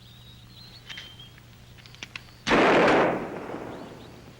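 A single pistol shot about two and a half seconds in, loud and sudden, with an echoing tail that dies away over about a second. A few faint clicks come before it.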